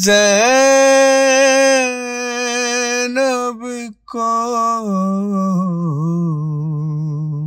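A solo male voice singing an Urdu noha (mourning lament), unaccompanied, holding one long note with a slight vibrato. After a brief break about four seconds in, a second phrase steps down lower and trails off.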